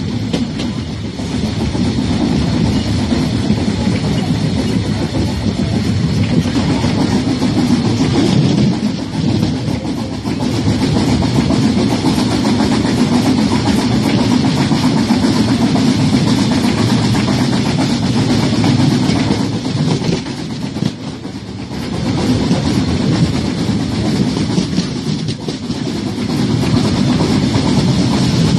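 Harz narrow-gauge train running, heard from an open carriage window: a steady loud rush of wind and train running noise, dipping briefly about three-quarters of the way through.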